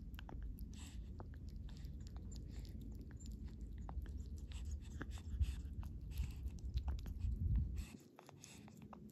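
White kitten lapping milk and eating churu treat from a shallow metal bowl: a fast run of small wet clicks from tongue and chewing, with short hissy huffs of breath through the nose between them. A low rumble lies underneath and stops near the end.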